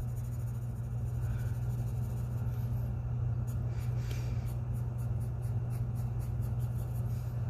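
Graphite pencil shading on drawing paper, scratching in short back-and-forth strokes. The strokes are faint at first, then become a quicker run of about three a second in the second half, over a steady low hum.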